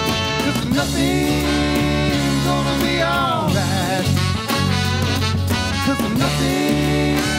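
Country-rock band with a horn section of trombone, trumpet and tenor saxophone playing a swinging, upbeat number live over electric guitar, bass and drums, with a singer at the mic.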